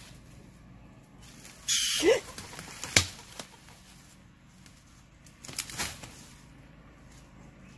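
Brush and branches rustling in two short bursts, about two and six seconds in, as a person pushes a long stick through undergrowth, with one sharp crack between them.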